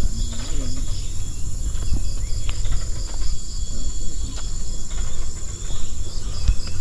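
Insects in tropical forest shrilling steadily at a high pitch, with a pulsing chirp over it at times, over a constant low rumble of wind on the microphone.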